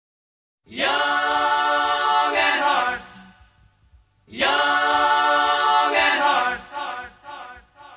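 A cappella singing with no instruments: two sung phrases of about two seconds each, with a short pause between them.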